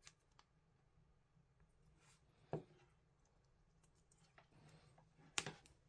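Near silence with faint handling noises of a roll of tape and a plastic electrical plug being worked by hand: small clicks, with two louder short sharp sounds about two and a half seconds in and near the end.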